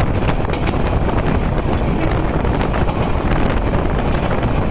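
Heavy wind buffeting a microphone held out of the doorway of a moving passenger train, over the train's steady running rumble on the track.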